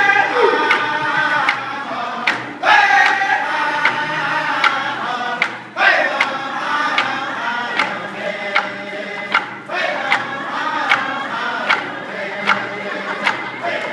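A group of powwow-style singers sings a round dance song in unison over a steady drum beat of roughly one strike a second. Phrases open high and slide down.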